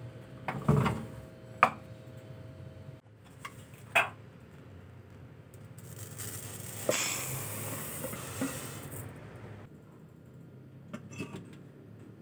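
Plastic rice dispenser worked by hand: a short rattle of dry rice dropping into its drawer and sharp plastic clicks. Then uncooked rice poured from the tray into a metal cooker pot, a hiss of grains lasting about three seconds with a knock as it starts, and a few light clicks near the end.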